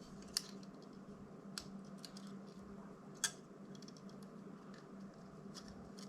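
A few small, sharp clicks and ticks of a hand tool against the thin plastic frame and cable of a DJI Mini 2 drone as the ribbon flex cable is pried loose, three of them clearer than the rest, over a low steady hum.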